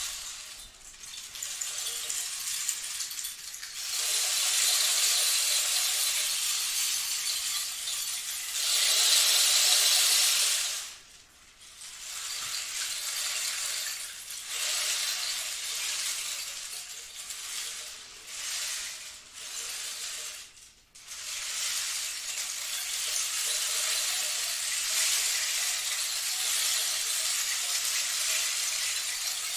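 Rain stick being tipped over again and again: a steady cascade of pellets trickling down inside the tube, each pass swelling and fading, with a few short breaks where it is turned.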